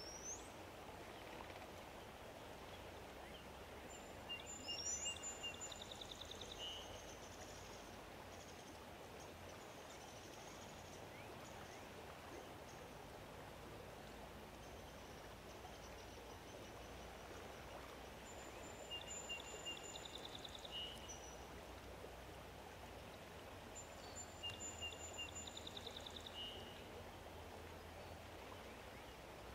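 A songbird sings the same short phrase three times, each a high thin note with a quick trill below it, over a steady faint hiss of outdoor ambience.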